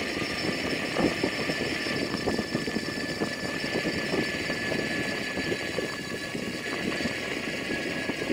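Wind and road rumble while riding a two-wheeler along a paved road, with constant small rattles and a faint steady high whine.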